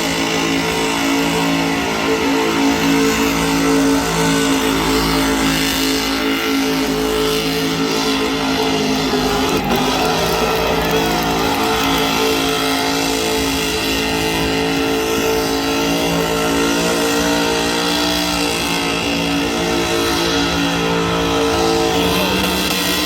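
Car engine running at steady high revs, held for long stretches, with small shifts in pitch about ten seconds in and near the end.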